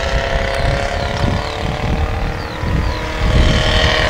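Single-cylinder four-stroke Honda-clone engine of a homemade paramotor running steadily at flying power, its propeller drone heard from the ground as it flies overhead. The drone grows louder a little past three seconds in.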